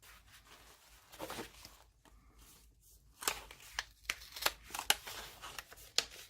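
Paper packaging rustling and crinkling as items are handled and unwrapped, with a few sharp clicks and taps, busier in the second half.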